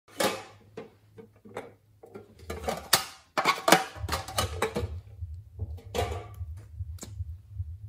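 Small tin cases being handled and opened by hand: irregular clicks, taps and light metallic clatter, the sharpest around three to four seconds in. A low rhythmic throb runs underneath from about four seconds in.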